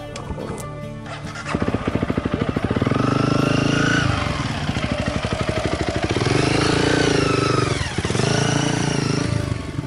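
Motorcycle engine starting up about one and a half seconds in and running, its revs rising and falling twice.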